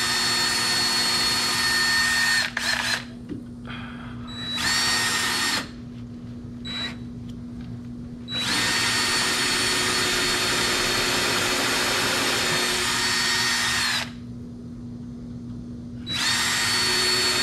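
Power drill running at steady speed in several bursts, the longest about six seconds, with short pauses between, as it bores a pilot hole down through the vanity top into the wooden framing below.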